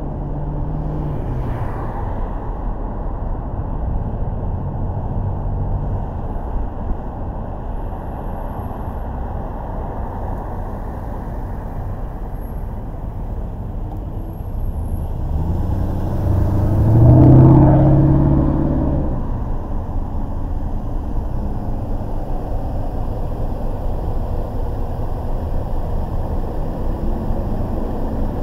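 Steady road and traffic noise from a car driving on city streets. About two-thirds of the way through, a louder vehicle engine swells and fades as it passes close.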